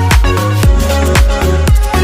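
Background music: an upbeat electronic dance track with a steady kick-drum beat, about four beats a second, and a bass line.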